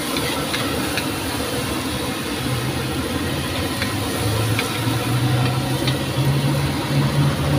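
Metal spatula scraping and clinking against a steel wok as greens and scrambled egg are stir-fried, over a steady hiss of frying and the burner. A low engine-like hum grows louder from about a third of the way in.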